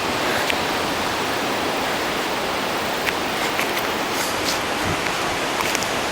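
Strong wind from the remnants of Hurricane Ike blowing steadily, a dense unbroken rush of noise with a few faint ticks and rattles in it.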